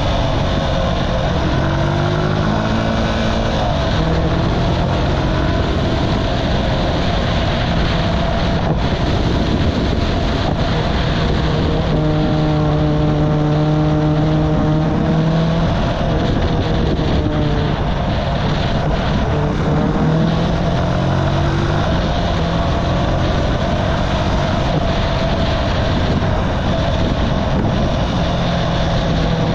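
Archive Motor AM60's buzzy 125cc single-cylinder engine running while riding, its pitch rising and falling with speed and gear changes, with a steadier cruising stretch near the middle. A constant rush of wind and road noise lies under it.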